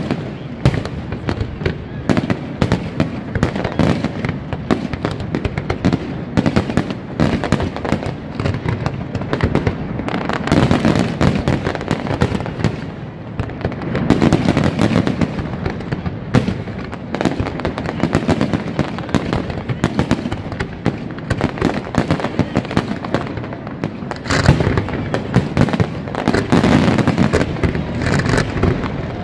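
Fireworks display: a dense, continuous barrage of rapid bangs and crackling, with louder surges of bursts about halfway through and again near the end.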